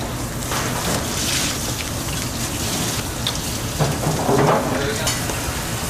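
Eggs cracked by hand into a plastic tub, with a few short shell cracks and the drop of the egg into the tub, over a steady background hiss and hum.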